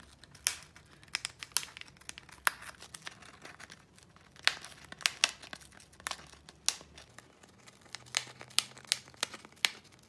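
Foil tea sachet crinkling and crackling in irregular sharp bursts as a rosy-faced lovebird bites and tugs at its edge to tear it open.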